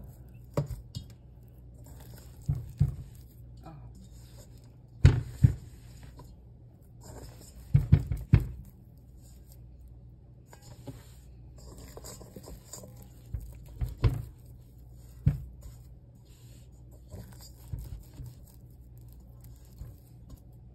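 Hand stretching and folding a sticky, shaggy bread dough in a stainless steel bowl: soft wet squelches and thumps as the dough is pulled up and slapped back down, at irregular intervals.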